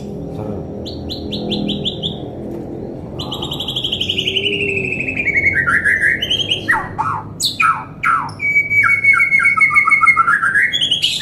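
White-rumped shama singing a loud, crisp, varied song. It opens with quick trills, then a long trill sliding down in pitch, then rapid sweeping whistles and sharp notes that grow louder in the second half.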